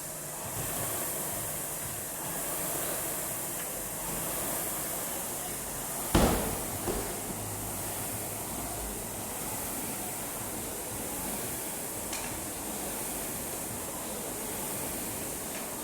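A single loud bang about six seconds in, followed by a smaller knock, over a steady background hiss.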